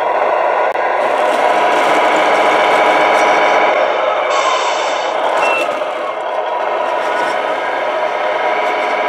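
Tamiya MFC-01 multi-function sound unit in a 1/14 Globe Liner RC truck, playing its simulated big-rig diesel engine sound through the truck's small speaker while the truck drives, the engine note rising and falling with the throttle. A short air-brake hiss comes about four and a half seconds in.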